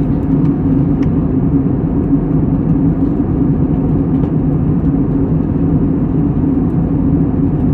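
Steady low rumbling drone of a moving vehicle's cabin noise, even and unbroken, with a faint steady hum in it and little high-pitched sound.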